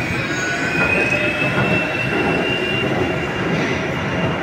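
Wuppertal Schwebebahn suspended monorail car passing overhead, its steel wheels rumbling along the rail above with a thin, high squeal through most of the pass.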